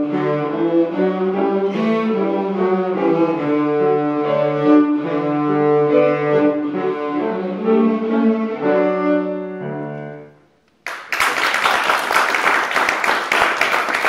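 Four cellos with piano accompaniment play a piece in held, bowed notes, ending on a final chord that dies away about ten seconds in. Audience applause breaks out just after and carries on.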